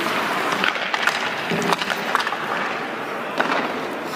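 Hockey skates scraping on rink ice, with several sharp clicks and knocks of a hockey stick striking the puck and ice, the loudest a little under two seconds in.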